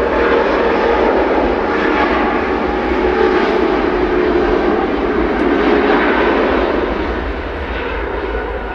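Airbus A350's Rolls-Royce Trent XWB engines making a loud buzzing drone: several steady tones over a jet roar, easing off somewhat near the end. This is the 'buzzsaw' tone of the big fans at high thrust.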